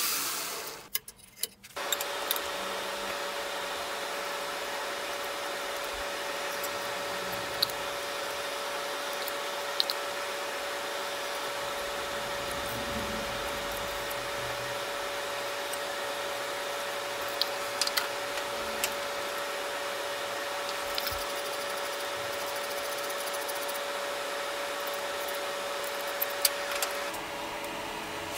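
Steady rushing blower noise with a constant hum, typical of a gas forge running while a blade is brought up to hardening heat, with a few light metallic clicks. It cuts off about a second before the end.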